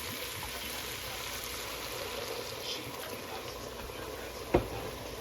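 Steady watery noise of liquid from the cooking, with one sharp knock about four and a half seconds in.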